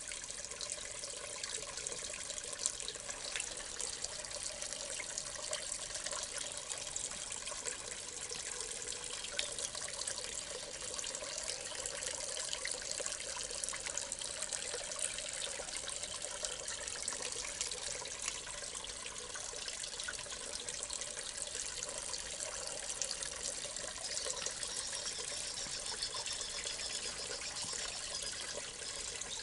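Water trickling steadily in a small irrigation channel, a continuous splashing babble of many tiny drops.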